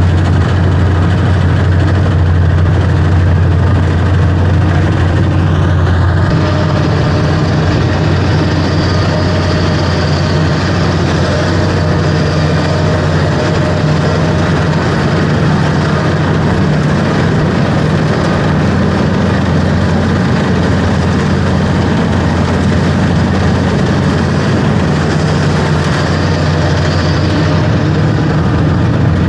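A heavy engine running steadily close by: a loud, even low drone with no change in speed.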